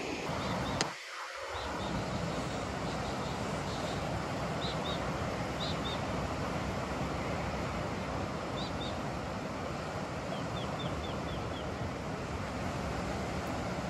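Steady rushing of wind and surf by the sea, with small bird chirps scattered over it, including a quick run of about five chirps near the end. A short click and brief drop come about a second in.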